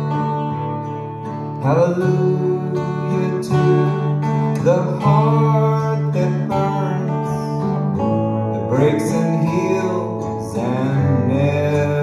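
Live acoustic-electric trio playing: strummed acoustic guitar over electric guitar and bowed cello, with sliding, bending notes rising over the held chords every few seconds.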